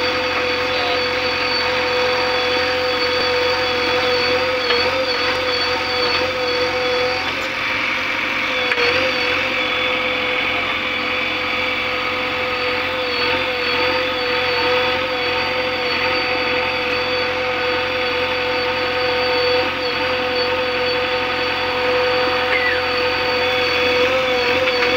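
JCB 3DX backhoe loader's diesel engine running steadily with a constant whine while it scoops and dumps soil into a tractor trolley.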